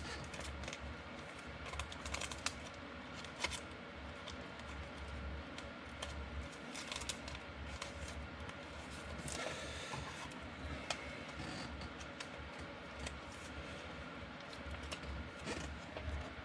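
Trading cards and pack wrappers being handled: scattered light clicks and soft rustling over a steady low hum, with a longer rustle near the middle.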